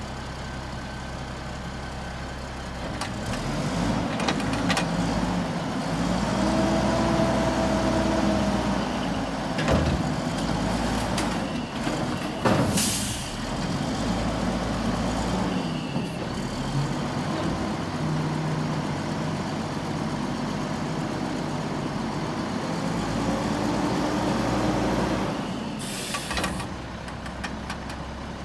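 Mack LE garbage truck's diesel engine revving up to drive the hydraulics as the front-loader arms lift the Heil carry can over the cab to dump it into the body and lower it again, with a hydraulic whine rising and falling. A sharp air hiss comes about halfway through and another near the end.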